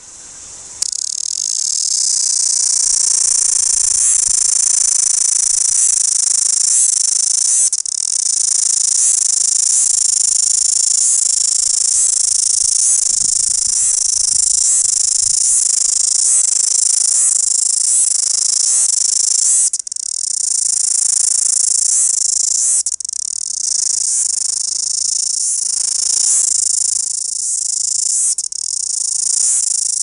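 Chorus cicada (Amphipsalta zelandica) singing: a loud, continuous high buzz with a regular pulsing running through it, broken by a few brief dips. It starts about a second in.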